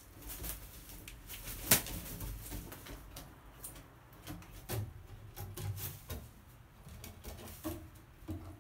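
A crow handling a piece of deep-fried tofu on a wooden perch: scattered taps and knocks, one sharp knock the loudest about two seconds in. Midway there is a flurry of low wing-flap thumps as it flies up to a higher perch.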